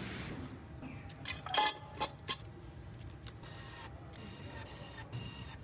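Metal engine parts clinking sharply a few times, about one and a half to two and a half seconds in, over a steady low machine hum.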